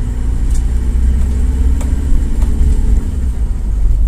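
Car interior noise while driving slowly over a rough, damaged road: a steady low rumble of engine and tyres, the engine pitch rising slightly in the middle, with a few light knocks.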